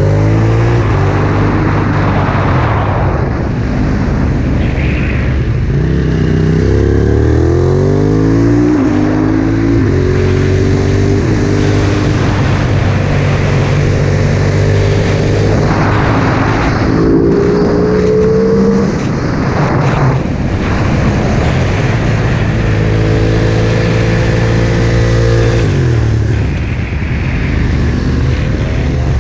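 Aprilia SXV supermoto's V-twin engine, breathing through a full titanium Akrapovic exhaust, revving hard around a racetrack. Its pitch climbs in runs and breaks off as the rider shifts gear, and falls away when he slows for corners, under a steady rush of wind.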